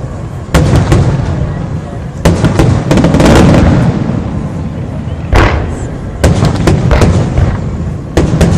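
Aerial fireworks bursting in quick succession: a series of sharp booms and cracks, several clustered together, with rumbling echo between them.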